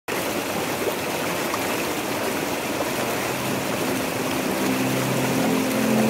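Water rushing and splashing down smooth rock slabs in a waterfall cascade, a steady, full hiss.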